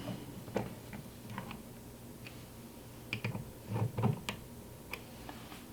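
Scattered light clicks and ticks of a metal multi-tool's flathead tip turning a screw back in, with a couple of soft knocks about four seconds in.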